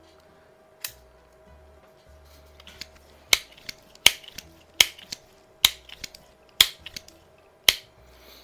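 1970 Benjamin 130-series multi-pump pneumatic air pistol being pumped: a single click near the first second, then six sharp clacks of the pump lever, about one a second, from about three seconds in.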